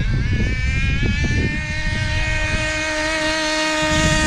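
Hobby-grade RC basher car's motor running at a high, steady pitch after a slight rise at the start, with a rumble of tyres over rough ground for the first second or so.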